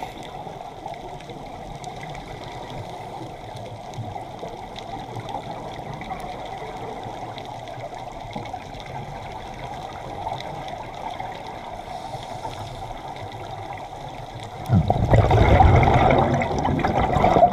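Underwater sound in a diver's camera housing: a steady hiss of water. About fifteen seconds in, the loud rush and rumble of a scuba diver's exhaled regulator bubbles takes over.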